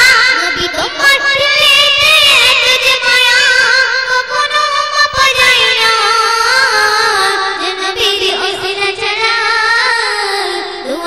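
A young girl singing into a microphone, a melody with a wavering, ornamented pitch.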